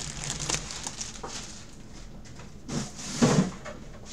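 Plastic packaging rustling and crinkling as a bagged jersey is handled and moved on a table, with a louder burst of handling noise about three seconds in.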